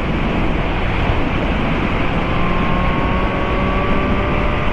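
Motorcycle at highway speed: a steady rush of wind on the microphone, with the engine's drone under it and a faint engine tone rising slowly from about halfway through.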